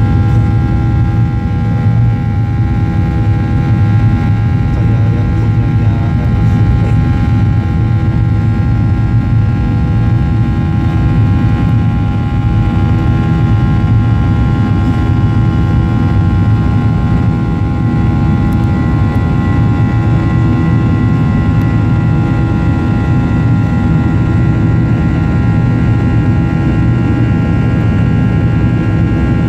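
Jet airliner's engines heard inside the passenger cabin, a steady drone with several fixed whining tones over a heavy low rumble. A faint extra high tone joins about two-thirds of the way in.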